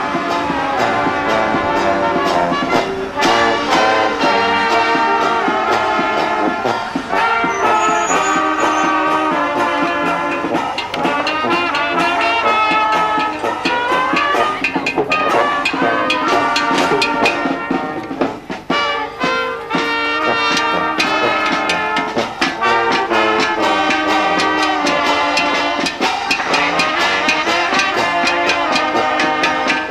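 Carnival brass band of trumpets and tuba playing a tune together, with a steady drum beat under the horns.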